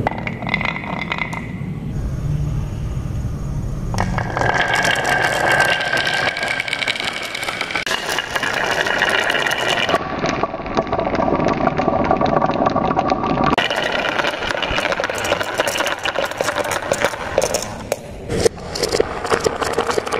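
Marbles rolling and clattering down a carved wooden wavy track and a wooden chute: a continuous rolling rumble with many small clicks as they hit the wood and knock against each other.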